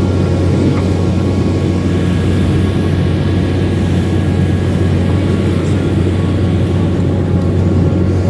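Excavator's diesel engine running steadily, a constant deep drone with no revving.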